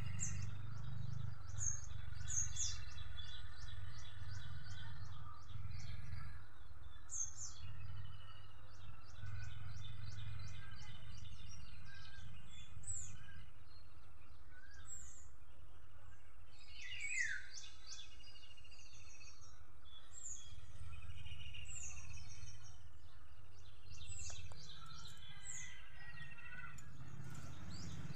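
Birds chirping and calling over and over, short high chirps, many of them sweeping downward, over a steady low rumble.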